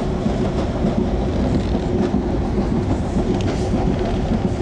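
Amtrak Regional train running at speed, heard from inside an Amfleet I coach: a steady rumble of wheels on rail and car noise, with a constant low hum.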